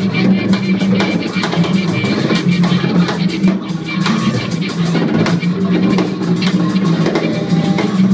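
Free-improvised music from a live quartet of double bass, drum kit, viola and guitar playing together. It is dense and busy, with a steady stream of drum and percussion strokes over sustained low string tones.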